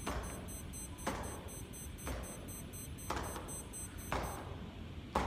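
Feet knocking down on an exercise mat about once a second during alternating seated kicks, each knock with a short ringing tail. A faint, high-pitched, rapid electronic beeping runs along and stops about four seconds in.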